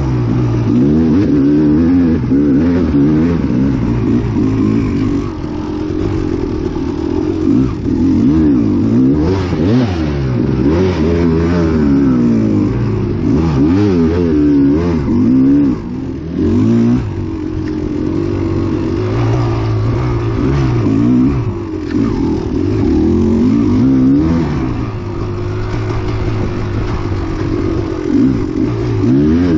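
KX250XC two-stroke dirt bike engine revving up and down continually under changing throttle as it is ridden, with some clatter.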